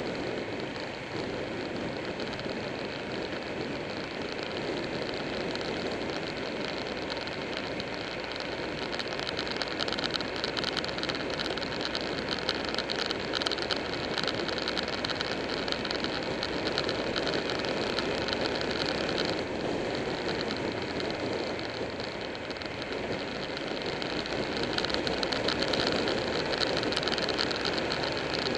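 Buell 1125R's V-twin engine running at road speed under heavy wind rush over the camera microphone, a steady dense roar with no gear changes or sharp revving.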